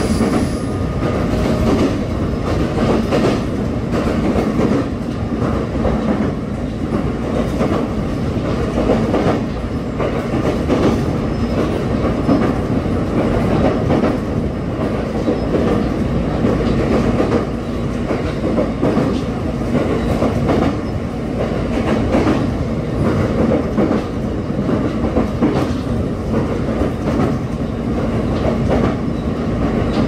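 Inside a JR East EV-E301 battery-electric train running at speed. There is a steady rumble of wheels on rail with clickety-clack from the rail joints, and a steady low hum beneath.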